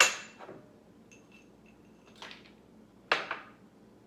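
Kitchen utensils clinking against dishes: a sharp clink with a short ring at the start, a softer knock about two seconds in, and another clink about three seconds in.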